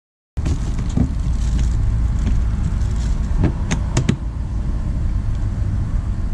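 A steady low rumble with a handful of sharp clicks and knocks around the middle, as a plastic storage box is gripped and stood up from.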